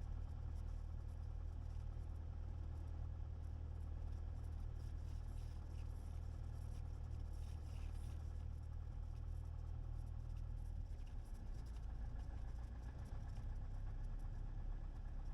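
Cessna 172's four-cylinder Lycoming engine and propeller running at idle during taxi, a steady low drone heard from inside the cabin. The drone changes slightly about eleven seconds in.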